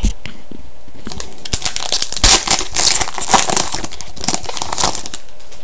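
Plastic wrapper of a trading-card pack being torn open and crinkled in the hands, with a dense crackle that rises and falls for a few seconds.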